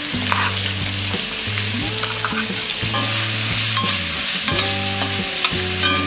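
Chopped onions sizzling in hot oil in a steel kadhai as they are tipped in and stirred with a spatula, with short clicks and scrapes of the spatula against the pan over a steady hiss. Low steady tones sit underneath.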